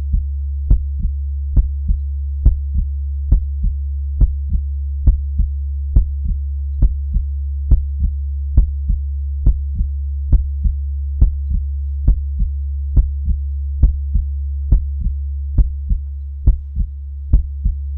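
Heartbeat sound: a slow, steady lub-dub, about seventy beats a minute, each beat a strong thump followed by a softer one, over a steady low hum.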